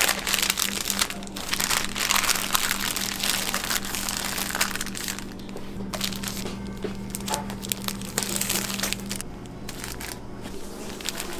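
Paper food wrapper crinkling and rustling as it is rolled and pressed tightly around an omelet-wrapped gimbap roll. The crinkling thins out about nine seconds in.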